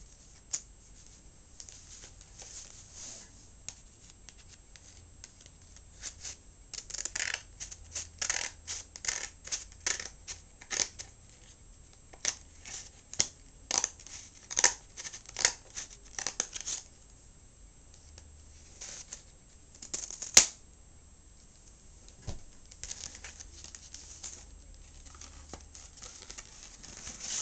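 A taped paper mailer being cut open: a run of short, sharp cutting strokes, two or three a second, with paper rustling and tearing. About twenty seconds in comes a single sharp snap, the loudest sound.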